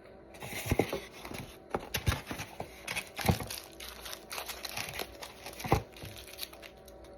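A bacon, egg and cheese sandwich being eaten close to the microphone: a dense crackle of bites and crunching with several sharp clicks. It starts just after the beginning and eases off about six seconds in.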